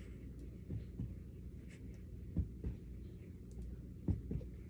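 Dull thumps of bare feet landing on a carpeted floor as one leg is kicked up and comes back down, three times in quick pairs, over a steady low hum.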